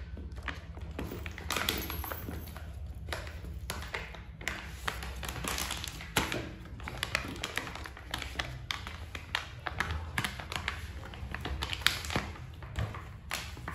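Irregular taps and clicks, with short bursts of plastic rustling, as a baby macaque handles a soft plastic wet-wipe pack and its snap lid on a wooden table. A steady low hum runs underneath.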